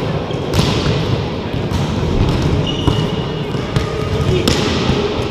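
Volleyball rally in a gymnasium: several sharp hand-on-ball hits a second or so apart, echoing in the hall, over a steady din of players on court. There is a brief high squeak about halfway through.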